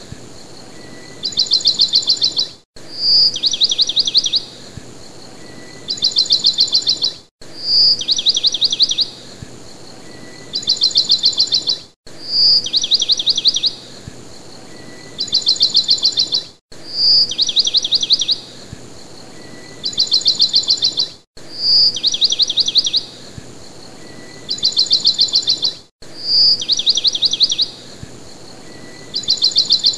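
A looped sound track of bird-like chirping: a single high blip followed by two quick, rapid trills, the whole pattern repeating about every four and a half seconds with a brief dropout at each repeat.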